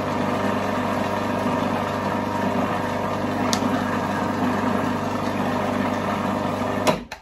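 Food processor motor running steadily with its blade whizzing, emulsifying butter into a béarnaise sauce; it is switched off and cuts out abruptly near the end.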